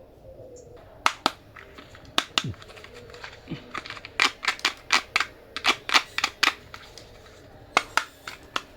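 Small hard plastic toys clicking and clacking as they are handled and set down: about twenty sharp clicks at irregular spacing, starting about a second in and coming thickest through the middle.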